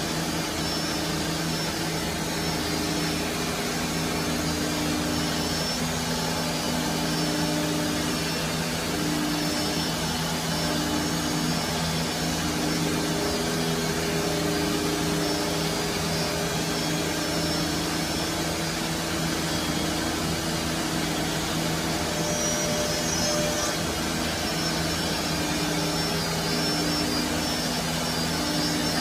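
Holztek R1325-R4 four-spindle CNC nesting router cutting a laminated panel with one spindle lowered: a steady hum from the spindle under the rush of its dust extraction. A tone in the hum wavers in level as the cutter moves through the board.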